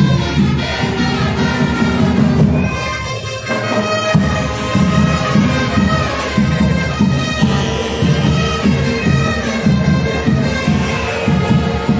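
A festival brass band playing: horns and trumpets over a steady beat of drums, which drop out for a moment about three seconds in.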